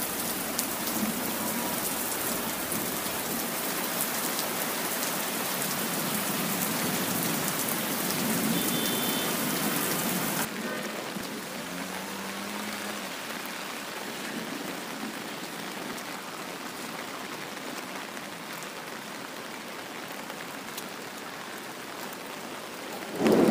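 Steady hiss of rain falling, louder for the first ten seconds and then softer after a sudden drop in level. A brief louder thump comes at the very end.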